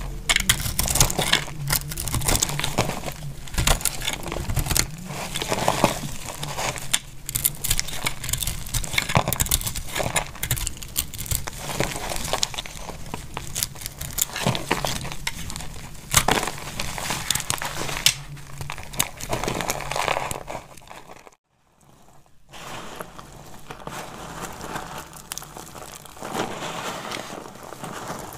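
Snap-off utility knife blade cutting into a block of dry, crumbly soap, with dense crackling and crunching as chunks and flakes break away. After a brief silence about three quarters of the way through, hands squeeze and crumble a heap of dry soap shavings, a softer crackly crunching.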